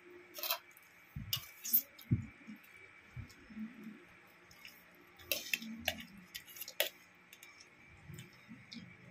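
A person eating rice by hand from a stainless steel plate: chewing with scattered sharp smacking clicks, in a few clusters, and soft low knocks.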